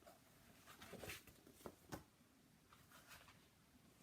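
Near silence: room tone, with a few faint rustles and light taps about one and two seconds in.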